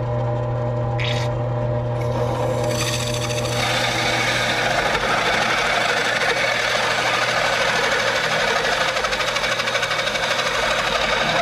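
Drill press running a hole saw through a metal cross-member plate, with cutting oil sprayed on: a steady motor hum, joined from about two seconds in by a harsh, high-pitched squeaking scrape as the saw teeth bite into the metal.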